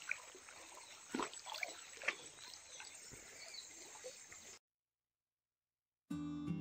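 Faint outdoor sound of a shallow stream: a steady hiss of running water with scattered short bird chirps and a few sharp clicks. It cuts off to silence about two-thirds of the way in, and strummed acoustic guitar music starts near the end.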